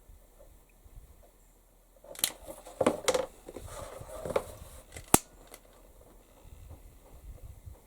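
Scissors snipping, several short cuts with handling rustle between about two and five seconds in, ending in one sharp click.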